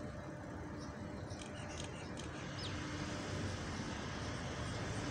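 Steady low rumble of city traffic, with a few faint, short high chirps, one of them a quick sweep in pitch, from about one and a half to two and a half seconds in, likely small birds.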